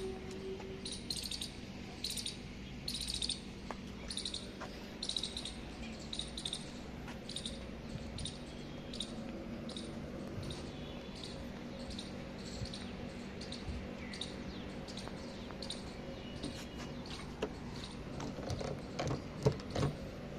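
A bird chirping over and over, short high chirps every half second or so, over a faint steady low hum.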